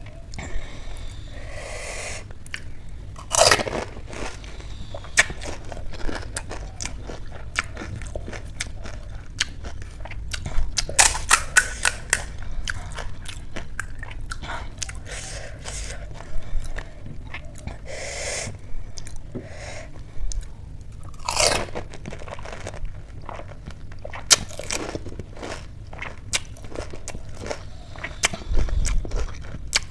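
Close-miked crunching and chewing of pani puri: crisp hollow puri shells filled with spicy water, bitten and chewed in a steady run of crackles. The loudest crunches come at about three and a half seconds, around eleven to twelve seconds, and at about twenty-one seconds.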